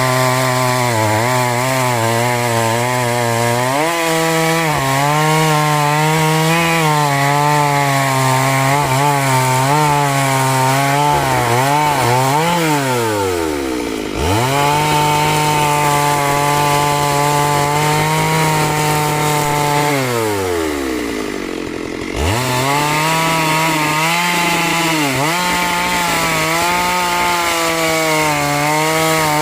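Two-stroke chainsaw running at high revs, its pitch wavering as it cuts through wood. Twice, about halfway through and again about three-quarters through, the throttle is let off and the engine note slides down towards idle, then it is revved straight back up.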